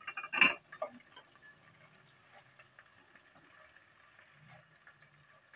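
A cooking spoon knocks against the pot a few times in the first second. After that, onions and ground spices sizzle faintly in hot oil.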